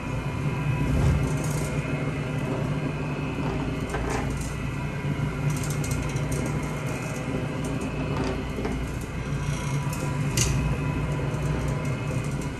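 Rotary floor machine running steadily, its motor humming as it spins a dry towel over the carpet to pull moisture out of the freshly cleaned pile, with a few light clicks and ticks.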